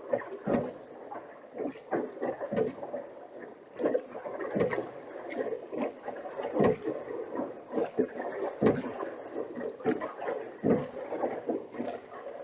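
Oars of a small rowboat working through the water, with a knock and splash about every two seconds as each stroke is pulled.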